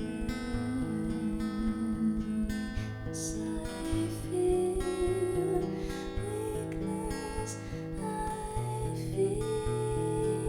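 Acoustic guitar played in a slow song, strummed and picked chords ringing and changing every second or so.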